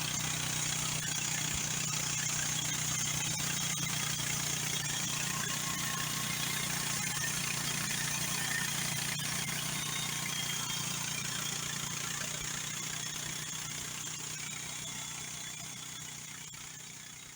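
MechMaxx 26-inch band sawmill's gasoline engine running steadily with a broad mechanical hiss, gradually fading near the end.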